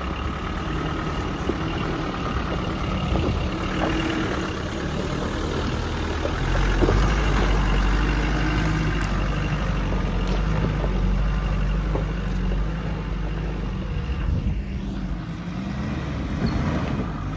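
Off-road 4x4 engine running at low revs as the truck crawls over a steep, rocky lane, growing heavier about six seconds in, with occasional sharp knocks.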